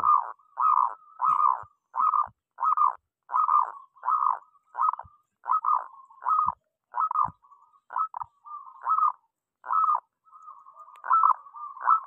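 Zebra dove (perkutut) singing: a long unbroken run of short coo notes, about two a second, with soft trills running between the notes in the second half.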